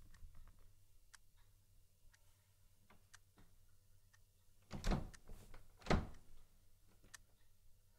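Two heavy thuds about a second apart, over faint ticking at roughly one tick a second.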